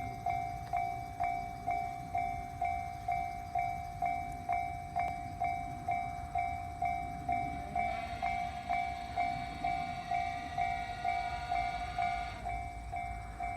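Japanese level-crossing warning bell ringing steadily, about two dings a second. From about 8 to 12 seconds in, an E233 series electric train passes over the crossing, adding a steady electric whine and rail noise under the bell.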